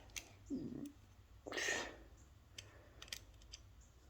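Hoistway access key switch being worked by hand: a few sharp clicks, a soft thump and a brief scraping rustle as the key is turned in the switch.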